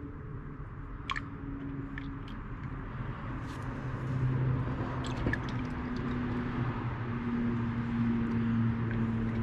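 Motor oil pouring from a motorcycle's drain hole into a drain pan as a steady splashing trickle, with a few small clicks. Soft, slow background music runs under it.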